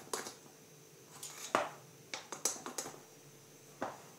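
Metal spoon stirring cake batter in a glass bowl, with a scatter of light clinks and taps as the spoon hits the side of the bowl while the food colouring is mixed in.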